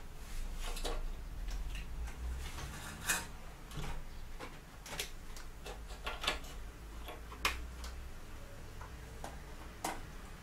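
Irregular sharp clicks and clacks of a graphics card and its fittings being handled and seated in a desktop PC case, over a low steady hum.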